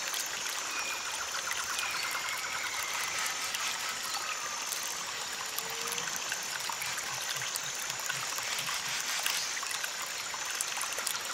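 Steady, even rushing noise like running water, with a few faint whistle-like glides over it.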